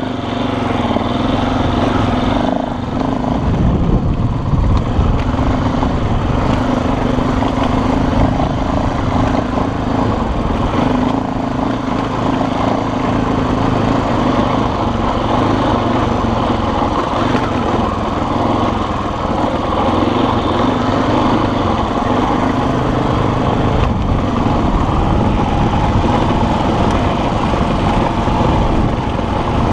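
Small off-road vehicle engine running steadily under way on a dirt road.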